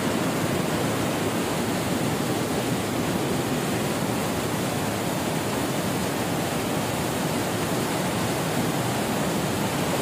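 Steady rush of white water cascading over boulders below a waterfall, an even, unbroken noise.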